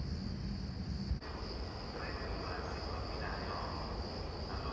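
Crickets chirping in a steady, high-pitched trill over a low background rumble, which drops off abruptly about a second in.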